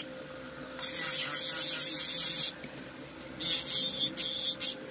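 Electric nail drill (e-file) filing an acrylic nail: the spinning bit grinds against the nail in two spells of gritty hissing, each about a second and a half long, over a steady faint hum.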